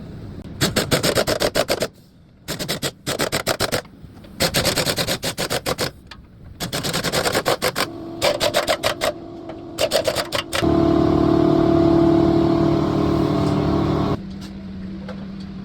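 Impact wrench hammering in six short bursts of rapid clicks, then running steadily for a few seconds before cutting off suddenly.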